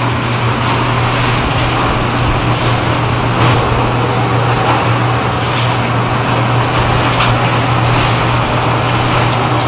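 Hands in rubber gloves mixing a big stainless steel bowl of raw minced beef, chili powder and green vegetables, a wet squishing and rustling, over a steady low machine hum.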